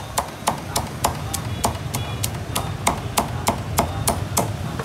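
Cleaver chopping crisp roast pork on a thick round wooden chopping block: sharp, evenly spaced strokes about three a second, stopping near the end.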